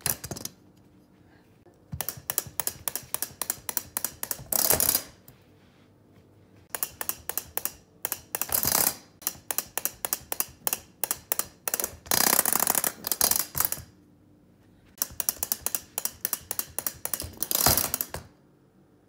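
Rapid plastic clicking of a battery-powered walking toy chicken's mechanism, in four bursts of a few seconds with short pauses between, each burst ending in a louder rush of noise.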